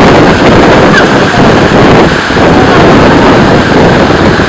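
Steady, loud rush of a fast mountain river running in white-water rapids, mixed with wind buffeting the microphone.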